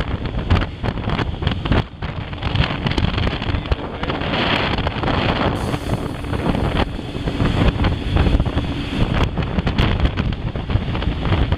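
Wind buffeting the microphone on a moving motorcycle, gusty and uneven, over a low rumble of engine and road.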